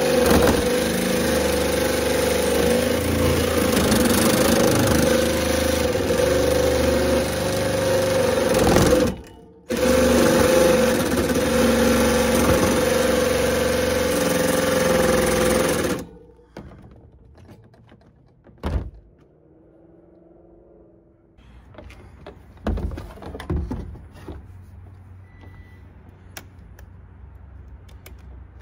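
Metabo HPT cordless jigsaw sawing through steel wire shelving. It runs steadily, drops out briefly about nine seconds in, then stops about halfway, followed by a few clicks and knocks as the saw is handled. The blade is worn, which the owner takes for the cause of the slow cutting.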